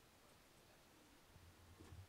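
Near silence: room tone, with a faint low rumble and a soft click near the end.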